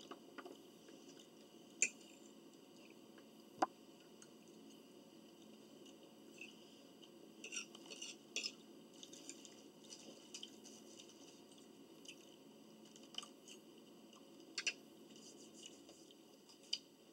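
Quiet eating sounds: faint chewing and crunching, with a few sharp clicks of utensils and dishes. A cluster of crunches comes around the middle.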